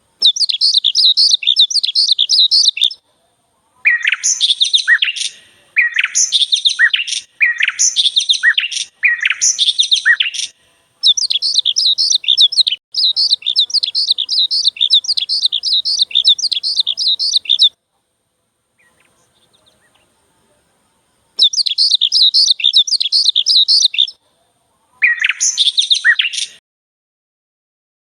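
High-pitched chirping calls in fast runs of quick notes, in phrases of a few seconds that start and stop abruptly. Several phrases include lower, falling notes, and there is a silent gap of about three seconds just past the middle.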